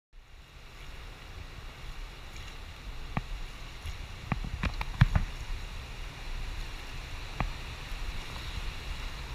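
Steady rush of river water around an oar raft running toward a whitewater rapid, growing a little louder. A few sharp knocks cut through it, the loudest about halfway through.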